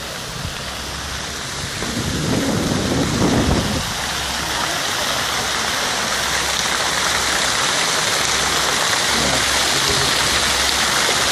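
Fountain water splashing steadily into its basin: a constant rushing hiss that grows a little louder about two seconds in, with low rumbles of wind on the microphone at times.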